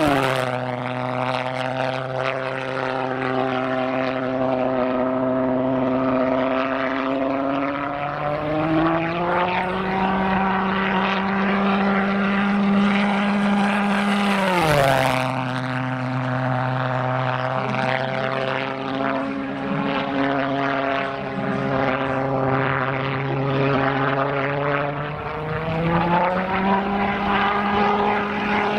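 Pulse-jet engine of an RC delta-wing jet model flying past at full power, a loud, steady buzzing drone. Its pitch drops sharply as the model passes, once at the very start and again about halfway through, and climbs back up gradually a third of the way in and again near the end as it comes round for the next pass.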